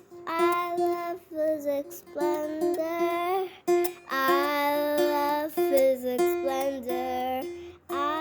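Outro jingle: a high, child-like voice singing a short phrase over and over, in short phrases with brief gaps, over plucked strings.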